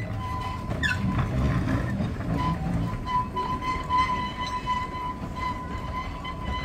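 Narrow-gauge steam locomotive hauling a train of passenger coaches, with the low rumble of the moving train under a steady high-pitched whine. A brief rising squeak comes about a second in.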